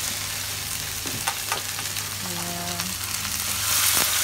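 Cubed tempeh frying in hot oil in a wok: a steady sizzle, with a few sharp clicks of the spatula against the steel bowl and wok as the cubes are scraped in. The sizzle grows louder near the end as more cubes hit the oil.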